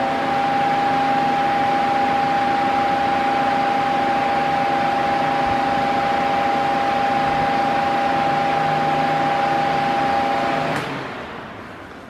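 Mondial Maxi Power 40 cm 140 W fan running steadily: a rush of air with a steady whining hum from the motor, which the owner finds too noisy. About 11 seconds in, the whine cuts out and the air noise fades away.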